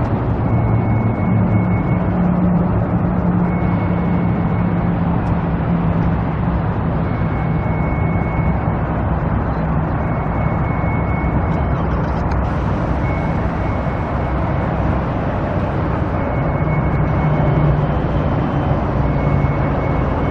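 A motor vehicle engine running steadily amid outdoor traffic noise, with a faint high-pitched beep that comes and goes every second or two.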